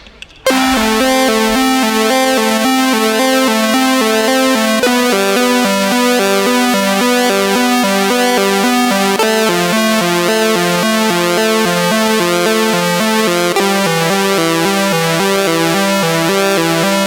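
Electronic music: synthesizers start abruptly about half a second in and play a fast, steady alternating-note pattern, with the harmony shifting every few seconds.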